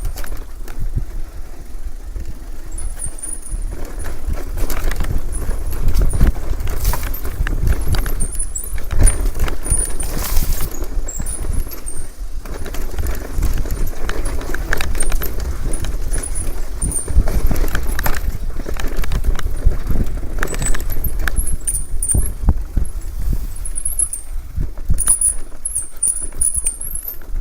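Mountain bike riding down a rough off-road trail: tyres rumbling and the bike rattling and knocking over bumps, with short high squeaks throughout. It grows louder about four seconds in.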